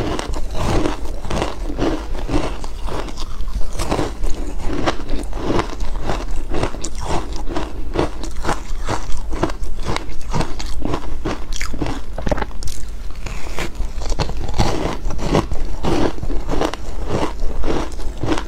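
Close-miked crunching and chewing of ice, with a rapid, even run of sharp crunches at about two to three a second.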